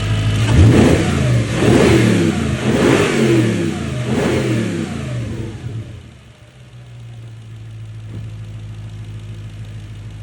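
Audi B7 S4's 4.2-litre V8 being revved about four times in quick succession, each rev rising and falling in pitch, then settling back to a steady idle, with the Ramair panel air filter fitted.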